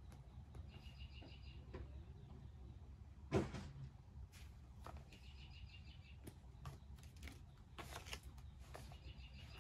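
Quiet desk sounds of journaling: small taps and rustles with one sharp knock about a third of the way in, over a low steady hum. A short, high, rapid chirping trill comes three times.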